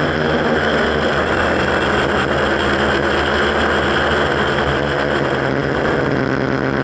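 A quadcopter's electric motors and propellers running steadily in flight, heard close up from a camera mounted on the frame: a loud, even buzz and whine with several held tones.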